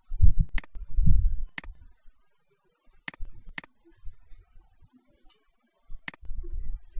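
Computer mouse clicking: five sharp clicks, two of them about half a second apart, with low muffled bumping early on and near the end.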